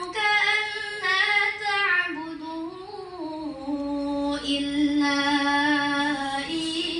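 A young girl chanting a Quran verse in melodic tilawah style. Her voice moves through ornamented, gliding phrases, then holds one long steady note for about three seconds before rising again near the end.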